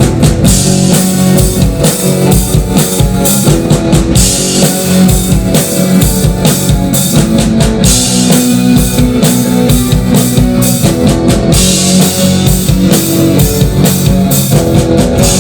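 Rock band playing a song's instrumental intro live: a drum kit keeps a steady beat with kick drum under held guitar and bass chords.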